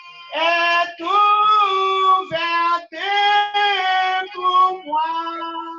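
A woman's voice singing a French hymn alone, holding long notes in several short phrases that step up and down in pitch.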